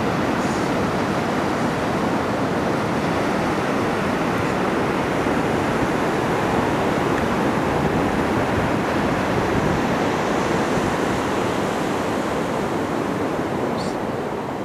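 Ocean surf breaking on a sandy beach: a steady rushing wash of waves that eases a little near the end.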